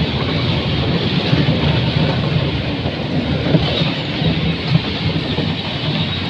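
Bumper cars running around the ride floor: a loud, steady rolling rumble from the cars' wheels and motors, with no clear single bump standing out.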